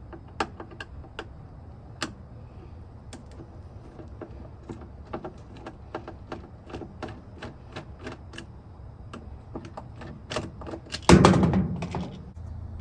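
A Phillips screwdriver backing out the green mounting screws of a washer's shift actuator: a string of light, irregular clicks. About eleven seconds in there is a louder clatter as the actuator comes free of its metal mounting plate.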